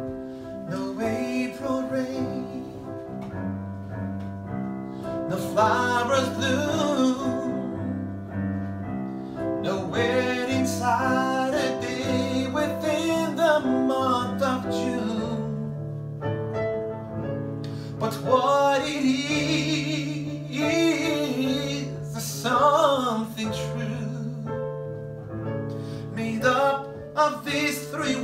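A man singing a slow song over instrumental accompaniment of held chords with guitar and keyboard.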